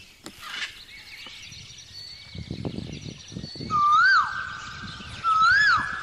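Birds chirping, with two loud whistled calls that rise and dip in pitch, about four seconds in and again near the end. Faint rustling comes in between.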